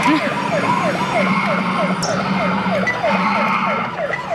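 Police car siren sounding in a fast yelp, each cycle a quick falling sweep, about three a second, over a steady low drone.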